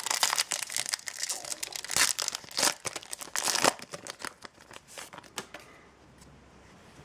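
Foil trading-card booster pack wrapper crinkling and being torn open. It is a dense run of crackles for about the first four seconds, then thinning out to lighter handling.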